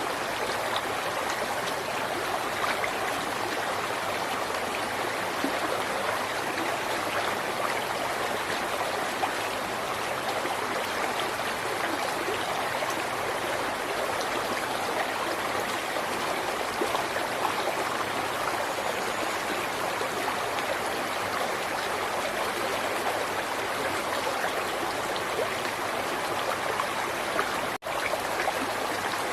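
River water flowing in a steady, even rush with no letup, broken only by a momentary gap near the end.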